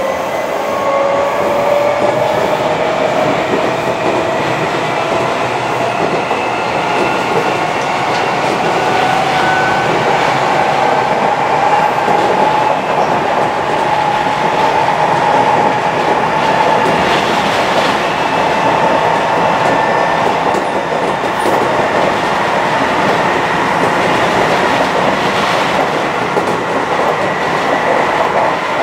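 Seibu 6000 series electric train with Mitsubishi SiC-VVVF traction equipment running at speed, heard from inside the passenger car. A faint motor whine climbs in pitch over the first half as the train gathers speed, then holds steady over the wheel-on-rail rumble and occasional rail-joint clicks.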